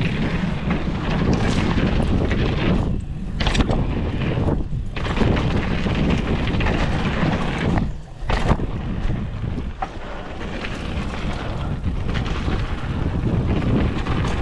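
Wind rushing over the camera microphone with mountain bike tyres rolling fast over a dirt trail, a steady rushing noise that drops away briefly a few times.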